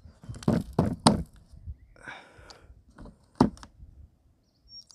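Several sharp clicks and knocks of metal parts being handled on an opened lawn tractor starter motor. The loudest come about a second in and about three and a half seconds in, with a brief rustle in between.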